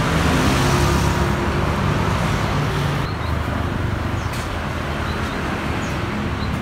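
Street traffic: scooters and cars passing on a busy road, with an engine running close by that is loudest in the first two or three seconds.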